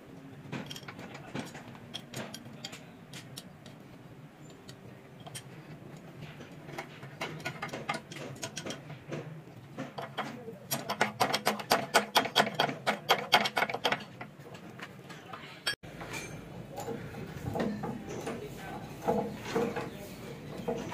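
Metal clicks and clanks from hand tools working on a hydraulic press's hose fittings, with a fast, ratchet-like run of loud clicking for about three seconds midway, followed by scattered metal knocks and clatter.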